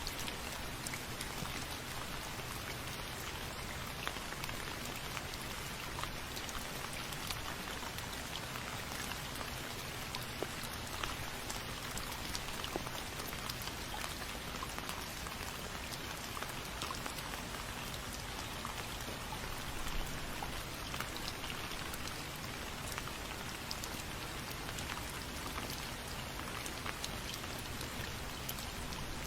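Steady rain falling, with many small drops ticking on a hard surface.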